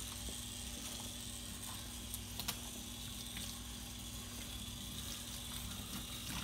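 Kitchen sink faucet running a stream of water onto a dog's wet coat during a bath, a steady hiss with a couple of light clicks about two and a half seconds in.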